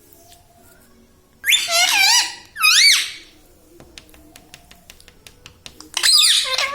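Ringneck parrot giving loud, high-pitched calls with a rapidly wavering pitch: two close together about a second and a half in, another near the end, with a run of light clicks between.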